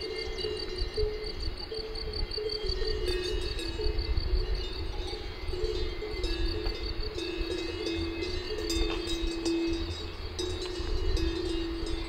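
Several bells ringing, their tones changing unevenly from one to the next, over a low rumble.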